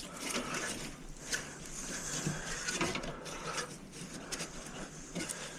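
Irregular clicks and scraping of plastic and metal parts inside a desktop computer case being handled and moved back into place.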